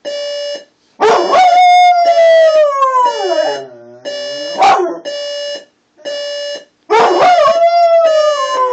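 Electronic alarm clock beeping about once a second while a dog howls along with it: two long howls that slide down in pitch, with a short cry between them.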